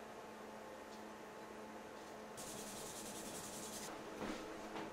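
Faint rubbing of a hand smoothing a paper template onto a walnut block, brighter for a second or so just past the middle, over a faint steady hum.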